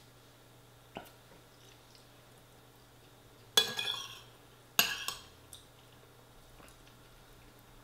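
Metal spoon scraping and clinking against a white ceramic bowl as it scoops up rice and chilli: a faint tap about a second in, then two loud scrapes about a second apart near the middle.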